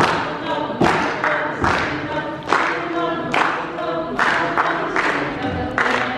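A congregation singing together and clapping in time, a little more than one clap a second.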